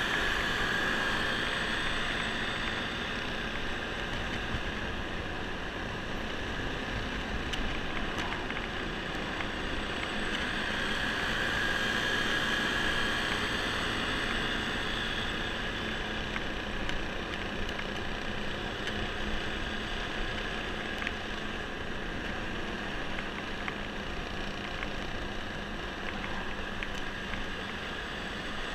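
Honda scooter engine running steadily at riding speed, with wind rumbling over the handlebar-mounted microphone. A higher whine swells twice, near the start and about halfway through.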